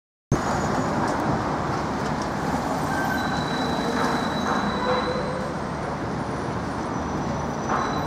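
Steady city street traffic noise, with a few faint high tones partway through; it starts abruptly just after the beginning.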